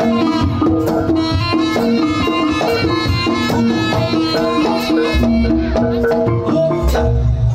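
Live East Javanese jaranan music: a traditional ensemble plays a melody of held pitched notes over quick percussion strikes. Deep low hits come in about five and seven seconds in.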